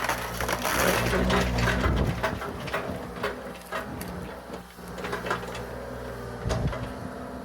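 Bobcat compact excavator's engine running steadily while wood and debris crack and crunch under the machine, loudest in the first two seconds, then scattered snaps and knocks.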